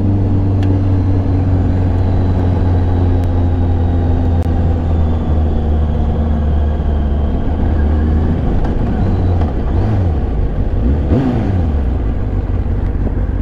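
Kawasaki Ninja sportbike engine running at low, steady revs under way, with a few quick rises and falls in pitch about nine to twelve seconds in, over a steady rush of wind and road noise.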